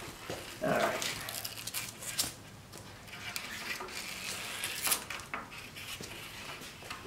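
Protective liner being peeled off 3M double-sided tape on a fibreglass side skirt: a crackly rustle with scattered small clicks and a short louder sound about a second in.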